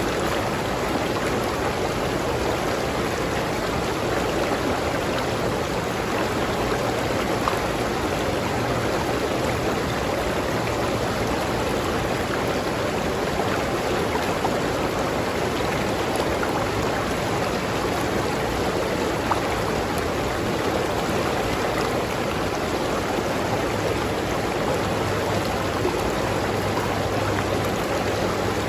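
River water flowing steadily over rocks, a constant rushing and gurgling.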